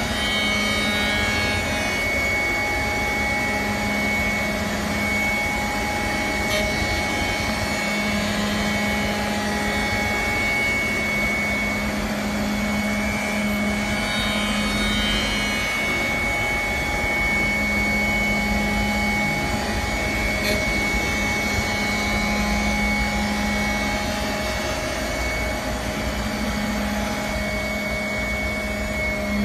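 Four-axis CNC wood lathe running, its rotary cutter heads turning wooden workpieces: a steady low hum and a high whine over the noise of cutting.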